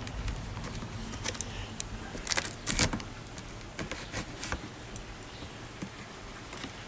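Cardboard box being handled and its flaps pulled open: scattered rustles, scrapes and crackles, loudest in a short burst a little over two seconds in.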